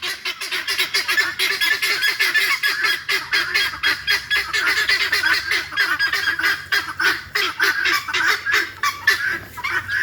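A flock of helmeted guinea fowl calling together: a continuous chorus of rapid, harsh, overlapping calls, several a second.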